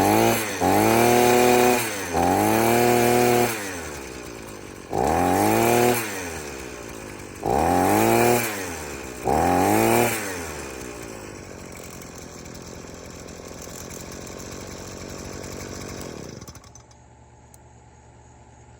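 Earthquake 33cc mini tiller's small two-stroke engine revved in five short throttle bursts, each rising and falling in pitch. It then runs on more quietly and stops about two-thirds of the way through.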